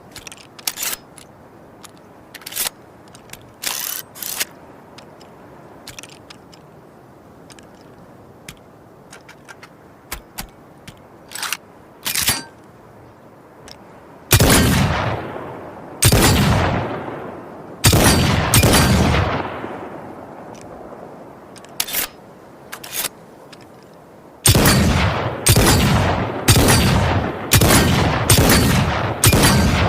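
Revolver gunshot sound effect. A scattering of short sharp clicks comes first; about halfway through come three loud shots, each with a long echoing decay, then a couple more clicks, and near the end a quick run of shots about two a second.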